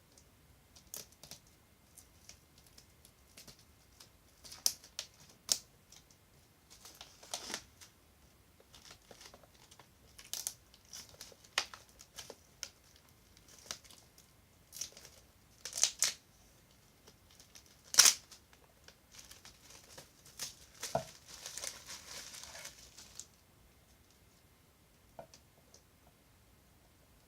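Plastic packaging crinkling and tearing as a steelbook Blu-ray set is unwrapped, with irregular sharp clicks and taps from handling the case; the loudest click comes about 18 seconds in, and the handling stops about 23 seconds in.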